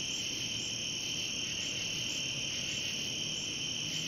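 Steady chorus of crickets and other night insects: a continuous shrill trill, with a fainter, higher chirp repeating evenly throughout.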